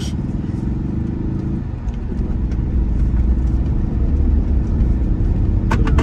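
Car driving on an unpaved, dusty road, its engine and tyre rumble heard from inside the cabin as a steady low drone that grows louder about halfway through.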